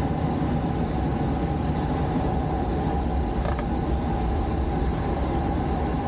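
Steady rush of airflow inside a glider's cockpit under aerotow, with a faint steady hum underneath.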